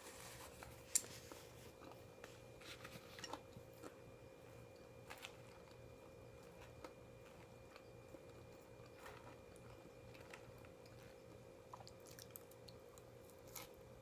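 A person quietly chewing and biting food, with soft scattered mouth clicks and one sharper click about a second in, over a faint steady hum.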